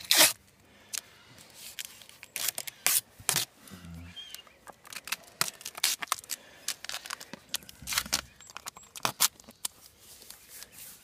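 Adhesive tape being pulled and torn in short, irregular strips while a leg splint is taped on, with scattered crinkling and handling clicks.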